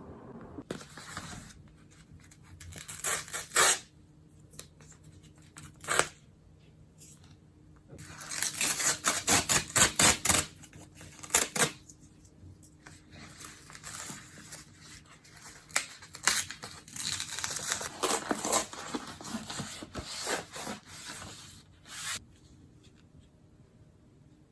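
Packaging being handled and torn open: irregular bursts of crinkling, rustling and tearing, with scissor-like snips, loudest and densest about eight to twelve seconds in.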